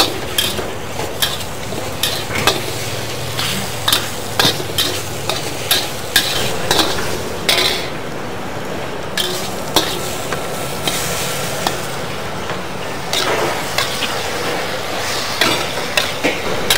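Metal spatula stirring and scraping in a wok, irregular clanks over a steady sizzle of chicken frying in sesame oil.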